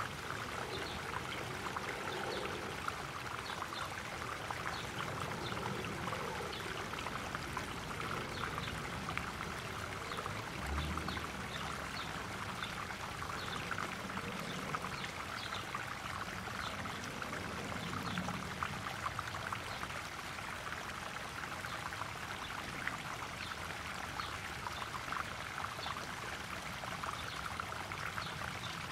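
Small garden pond waterfall pouring and splashing steadily into a koi pond, with many little droplet splashes over the rush of falling water.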